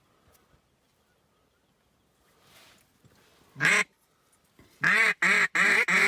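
A hand-blown duck call quacking: one loud quack about three and a half seconds in, then a quick run of loud quacks near the end, calling to ducks as they approach.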